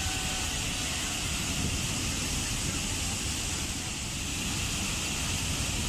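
Waterfall: falling water making a steady, unbroken roar, with deep rumble and bright hiss.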